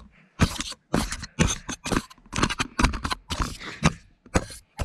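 Handling noise from a child grabbing the camera: fingers scraping, rubbing and bumping right on the microphone in a rapid, uneven run of loud scrapes and knocks.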